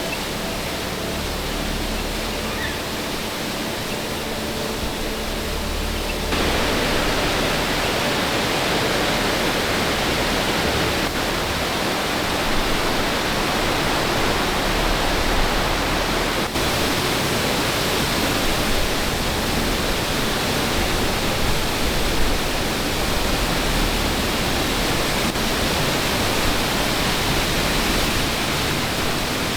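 Steady rush of flowing water, a continuous even roar that steps up louder about six seconds in.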